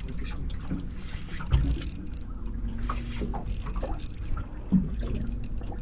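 Small fishing boat afloat on the river: a steady low rumble, with two dull knocks, one about a second and a half in and one near the end.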